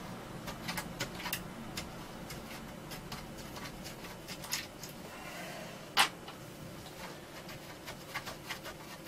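Small scattered clicks and ticks of screws being worked out of a computer's metal power-supply bracket, with one sharper click about six seconds in.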